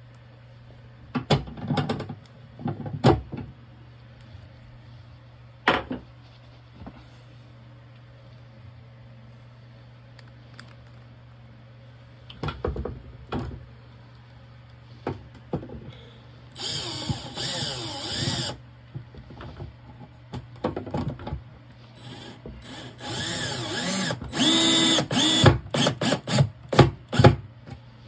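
A 12-volt cordless drill/driver runs in short bursts: one steady run of about two seconds past the middle, then a quick series of stop-start pulses near the end. Scattered knocks and clatter of tools and parts being handled come earlier.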